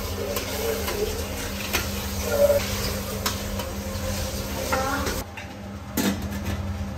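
Light clinks of stainless steel cookware as plates of idiyappam are set into a steamer pot and a steel lid is put on, over a steady low hum that drops away about five seconds in.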